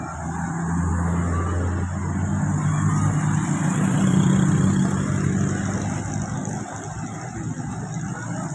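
Bus engine running with a steady low hum, growing louder toward the middle and then easing off slightly.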